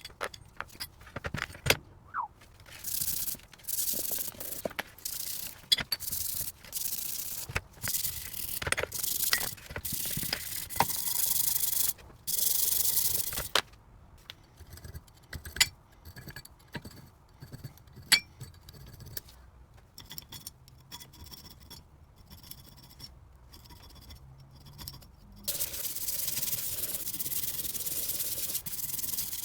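Grease and grime being scrubbed and scraped off a Bahco 114 pipe wrench, in repeated rubbing strokes a second or two long with sharp metal clicks and knocks between them, and a longer steady stretch of scrubbing near the end.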